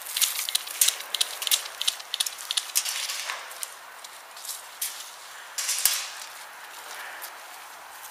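Dry grass crackling and rustling, with many irregular sharp crackles that are busiest in the first three seconds and then thin out over a faint hiss.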